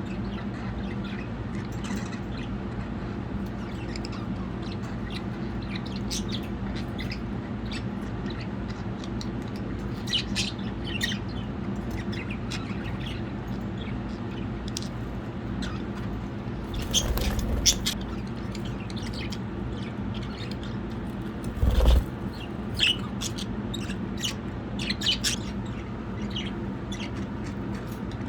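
Pet budgerigars chirping and twittering in short scattered notes over a steady low hum, with two louder brief scuffling noises about two-thirds of the way through.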